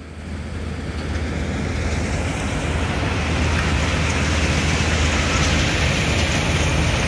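Tractor engine running steadily as it tows a loaded grain trolley: a low drone under a rushing wind noise over the microphone, both growing louder over the first two seconds and then holding.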